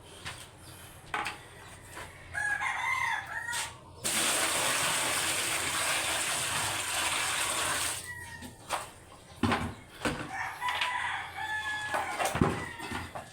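A rooster crowing twice, once a couple of seconds in and again near the end, with a loud steady hiss for about four seconds in between.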